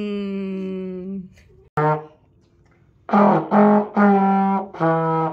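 Trombone playing one long held note. After a brief click, it plays a short note, then from about three seconds in a run of separate notes, short and long.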